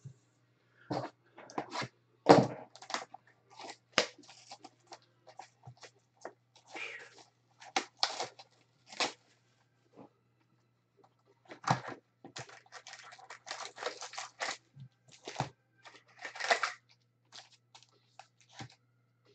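Cellophane shrink wrap being torn off trading-card boxes, crinkling and crackling in irregular bursts, with a few sharp clicks as the boxes and packs are handled.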